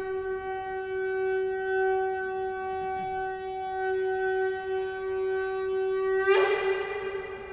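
A shofar sounding one long, steady blast that lasts about six seconds, then breaks sharply upward in pitch and ends.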